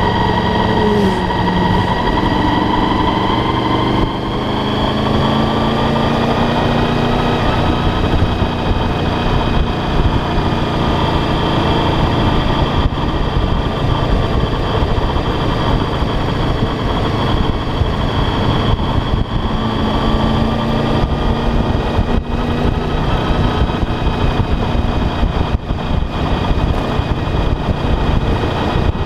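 Motorcycle engine running at road speed, heard from the bike itself, its note shifting up and down in pitch with throttle, over heavy wind rush.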